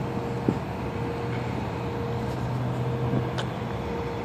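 Steady engine hum under outdoor background noise, with one short knock about half a second in.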